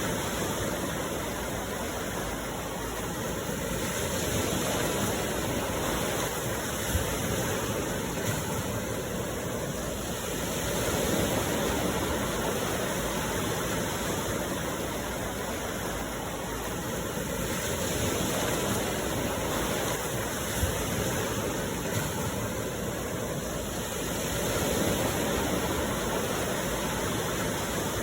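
Sea surf washing onto a shore: a steady rush of waves that swells and fades about every six to seven seconds.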